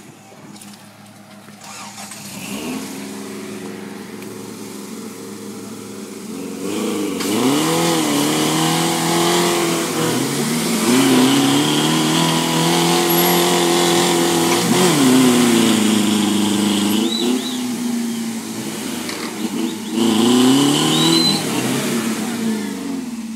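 Off-road vehicle's engine revving hard under load, the pitch rising and dropping several times as the driver works the throttle; it gets much louder about seven seconds in.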